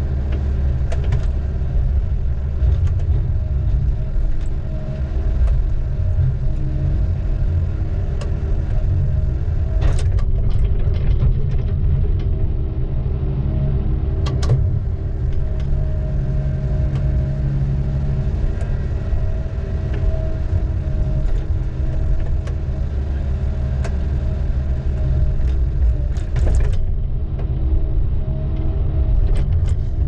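Heavy diesel engine of logging equipment running steadily at an even speed, with a few sharp clicks or knocks about ten, fourteen and twenty-six seconds in.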